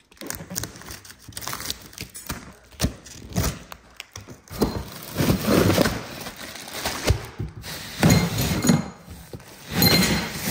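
Parts of a flat-pack rolling cart being unpacked and handled: an irregular run of knocks, thunks and clinks, busier in the second half.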